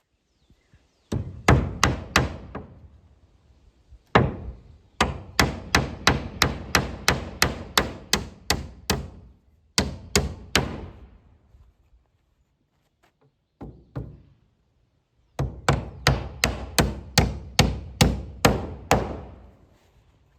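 Hammer driving nails into wooden board-and-batten barn siding: runs of quick, evenly spaced blows, about three a second, broken by short pauses.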